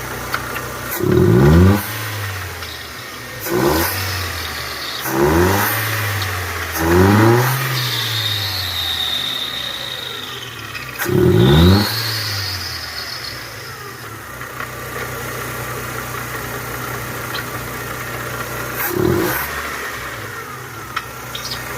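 Chevrolet Corsa VHC engine idling and revved in about six short throttle blips, to bring out a noise that the shop traces to the water pump. A high thin whine is heard for a few seconds after the middle.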